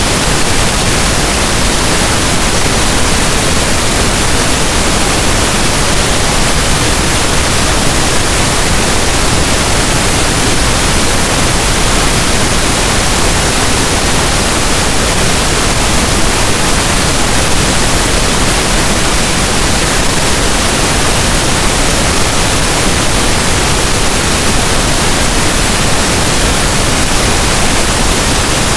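Synthetic pink noise: a steady, even hiss spread across all pitches, with no tones, beats or changes.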